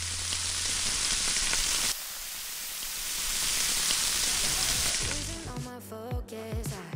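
Thin slices of raw beef sizzling on the hot wire mesh of a tabletop yakiniku grill, a steady hiss. About five seconds in it fades as background music comes in.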